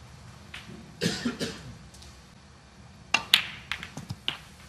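Snooker balls clicking on the table: the cue tip striking the cue ball and the ball hitting the object ball, as a few sharp clicks about a second in and a louder run of clicks from about three seconds in.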